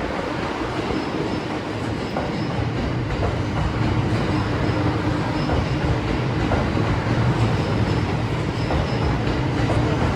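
Train cars rolling past on the rails: a steady rumble with occasional faint wheel clicks, growing a little louder after about two seconds.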